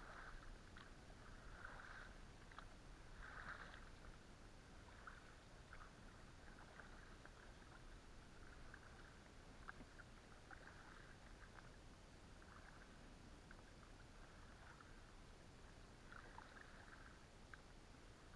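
Faint, quiet rowing of an inflatable boat: soft oar splashes and drips every couple of seconds, with a few small clicks.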